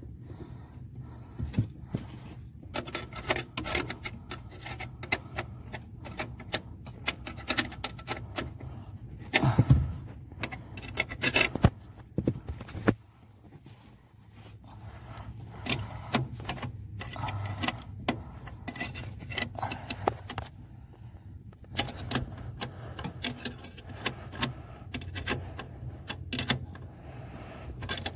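Hand tools and metal parts being handled during reassembly: irregular clicks, clinks and rattles, with a few quick runs of clicking and some louder knocks, over a steady low hum.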